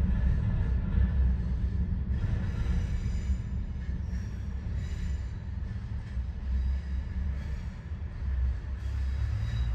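Diesel-hauled freight train rolling past, a steady low rumble with thin high-pitched wheel squeals coming and going.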